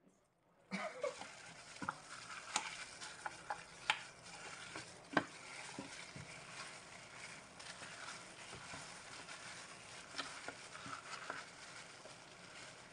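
Plastic-gloved hands rubbing and squishing raw whole chickens on a plate: soft wet squelching and glove crinkling with scattered sharp clicks and taps.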